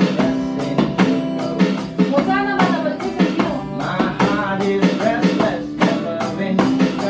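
Live jam: an acoustic guitar strummed over a steady beat on an electronic drum kit, with a man singing along.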